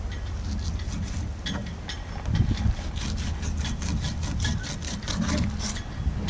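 Fillet knife sawing back and forth between a flounder fillet and its skin, the blade scraping on the cutting board as the skin is taken off. Quick short strokes, about five a second, fill the second half.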